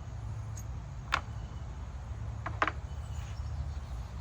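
A few sharp clicks of metal hardware and tools being handled, one about a second in and two close together a little past halfway, over a steady low background rumble.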